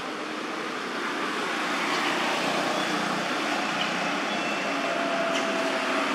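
Steady drone of motor traffic, growing a little louder about a second in.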